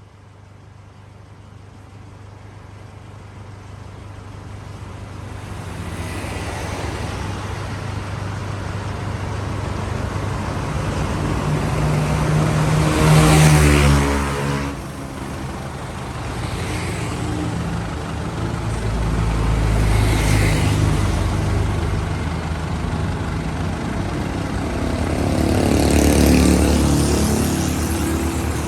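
Road vehicles driving past, with engine rumble and tyre noise. The sound builds over the first several seconds, and the loudest vehicle goes by about halfway through. Two more pass later.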